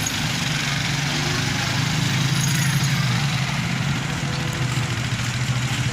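A heavy engine running steadily at an even speed.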